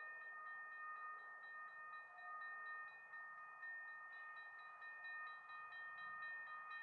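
Faint bell ringing with rapid repeated strikes, about four a second, over a steady ringing tone.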